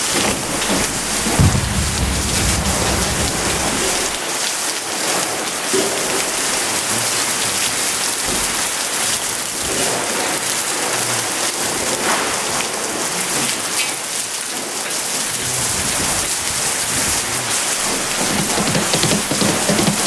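Heavy rain pouring steadily in a tropical thunderstorm, a dense hiss throughout. A low rumble runs under it for the first few seconds and again near the end, with one short thump about a second and a half in.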